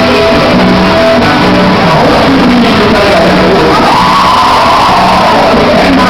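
Loud festa junina quadrilha music with singing, played for the dancers. About halfway through, a drawn-out voice rises and then falls over the music.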